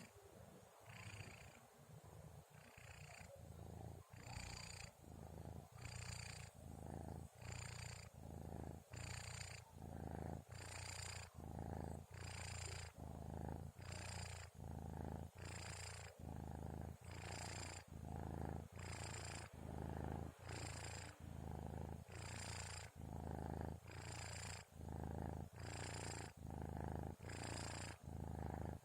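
Sleeping kitten snoring with a purring rumble that swells with each breath, about once every one and a half to two seconds. It is softer for the first few seconds, then steadier and a little louder.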